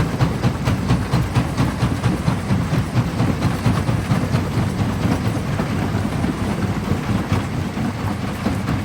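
Large quarry jaw crusher running under load, its swing jaw knocking at about three strokes a second over a heavy low rumble as it breaks black stone; the strokes blur into a steadier grinding rumble about halfway through.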